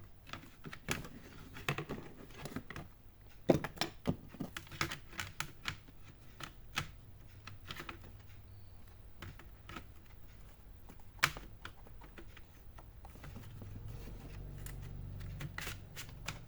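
Irregular plastic clicks and taps of laptop casing parts being handled and pressed back into place, with a low hum swelling near the end.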